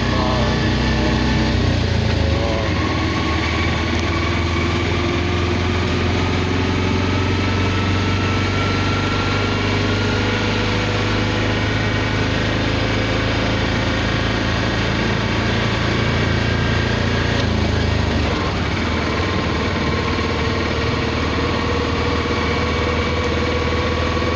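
A vehicle engine running steadily, its pitch creeping up slowly over about fifteen seconds and shifting after about eighteen seconds, with street noise under it.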